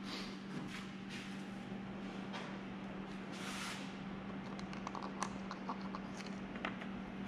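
Cloth shop rag rubbing and rustling in the hands, then light plastic clicks and taps as the oil funnel and the outboard's yellow oil-filler cap are handled, over a steady low hum.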